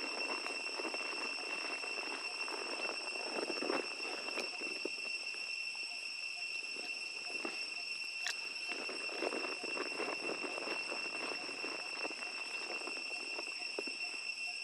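Insects droning steadily at one high, even pitch, with irregular crinkling and rustling of a plastic food wrapper as a young macaque handles it and eats from it.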